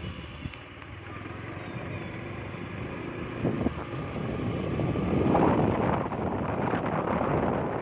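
Road and wind noise heard from a moving vehicle: a steady rushing with wind buffeting the microphone, growing louder about five seconds in.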